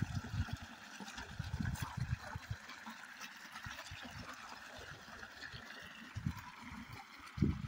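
Pumped irrigation water gushing from an outlet pipe and running along a field channel: a steady rushing hiss, with irregular low rumbles underneath.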